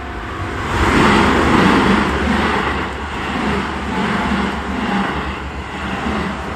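A Keisei Main Line electric train passing through the level crossing at close range: a loud rumble that swells about a second in, with a regular clatter of wheels over rail joints.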